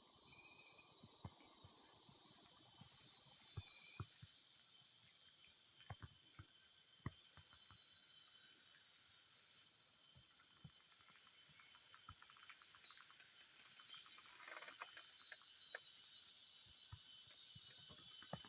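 Tropical forest insects giving a steady, high-pitched drone on two pitches, with a couple of short bird chirps and scattered faint clicks and rustles.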